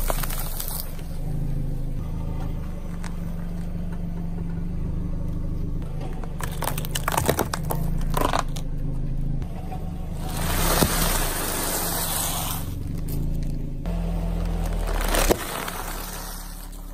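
A car tyre rolling slowly over small objects on asphalt, crushing them one after another: snack sticks, plastic pacifiers, a packet. Bursts of crunching and crackling come about a second in, around six to eight seconds in, and from ten to twelve seconds in, with a sharp snap near the end, over a steady low hum.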